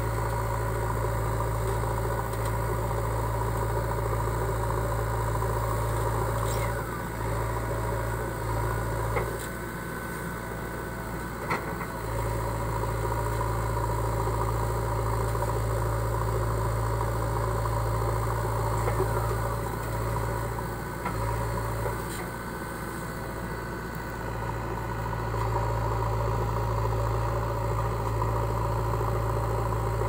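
JCB 3DX backhoe loader's diesel engine running steadily as the backhoe digs and loads soil, its level dropping briefly twice, with a couple of sharp knocks near the middle.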